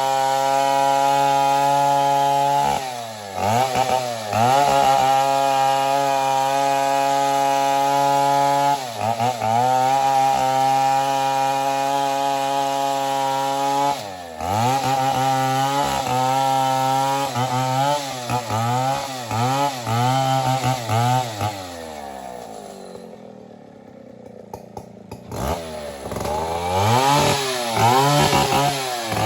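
Big two-stroke Stihl MS 070 chainsaw running at high revs, its engine note dipping and climbing back several times as it works. Near the end it drops to a low idle for a couple of seconds, then revs up again.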